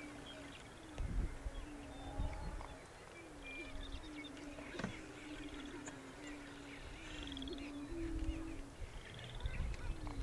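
Greater prairie-chickens booming: a chorus of low, hollow moans at nearly one pitch, one after another almost without a break, with faint short higher bird calls above and a single sharp click near the middle.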